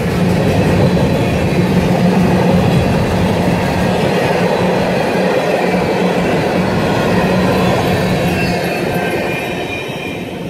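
Empty rock train's hopper cars rolling past, a steady rumble of steel wheels on rail. It fades near the end as the last cars go by.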